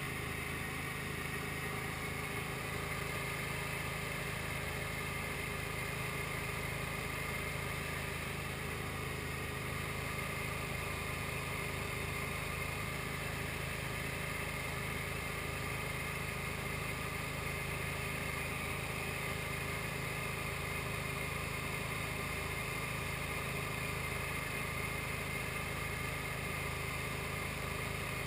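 SD-1 Minisport ultralight aircraft's engine and propeller running steadily in flight, a constant drone with no change in pitch.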